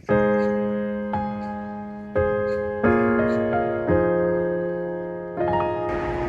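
Background music: slow solo piano, chords struck roughly once a second and left to ring and fade. Near the end a steady rushing noise comes in underneath.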